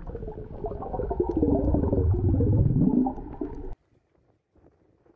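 Muffled underwater sound picked up by a camera held under water: water sloshing and bubbling with crackles and a rising tone about two seconds in. It cuts off suddenly about three and a half seconds in, leaving only faint wind.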